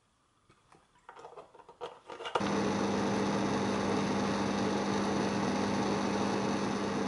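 A few soft clicks and rustles, then about two and a half seconds in a personal blender switches on and runs at one steady pitch, a loud motor hum with a whine above it, blending pancake batter.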